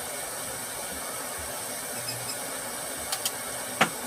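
A few sharp clicks from pliers and wire being handled as an electric motor's lead wires are joined, the loudest just before the end, over a steady hiss.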